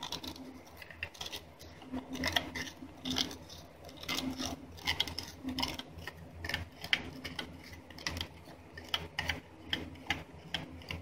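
Metal measuring spoon stirring in a metal measuring cup, scraping and clinking against its sides and bottom in irregular light clicks, as yeast nutrient and energizer powder are dissolved in water.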